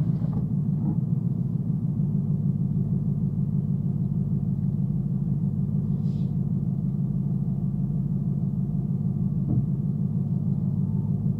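Supercharged Coyote 5.0 V8 running steadily with an even low rumble and no revving, heard from inside the cabin through its cat-delete, H-pipe and stock-muffler exhaust.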